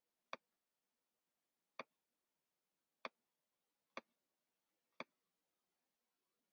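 Computer mouse button clicking five times, about a second apart and unevenly spaced, as spline points are placed one by one while tracing a shape in CAD software.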